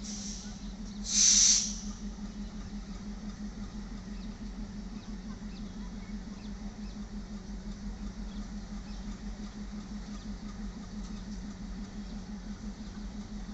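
Diesel locomotive of a passenger train approaching, its engine giving a steady low hum with a fast flutter. About a second in there is one short, loud hiss.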